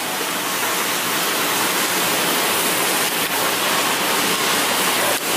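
Steady rushing hiss of background noise, even throughout, with a couple of faint ticks.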